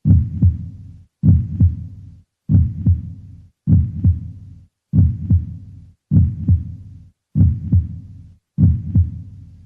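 Heartbeat sound effect: a low double thump, lub-dub, repeated eight times at an even slow pace of about one beat every 1.2 seconds.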